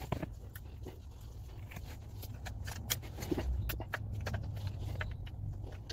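Rapid small metallic clicks and scrapes of a flat screwdriver working a circlip into its groove around the new rear lower ball joint in a BMW rear hub carrier, over a low steady hum.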